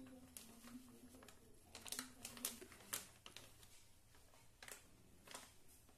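Faint crinkling of a plastic food packet being tipped and squeezed to pour out sattu flour, heard as a few scattered, soft crackles.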